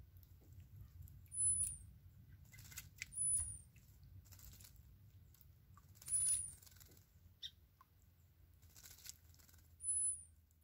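Sparrow bathing in a shallow pool, flicking water with short splashy bouts of wing-fluttering every few seconds. A very high, thin arched chirp sounds four times, a few seconds apart.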